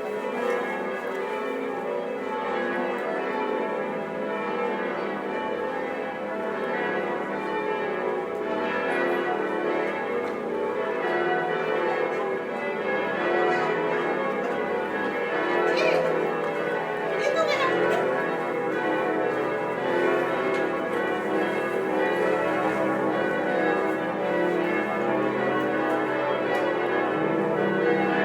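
Several church bells ringing together in one continuous, overlapping peal, their strokes merging into a dense mass of tones. It grows a little louder from about halfway through.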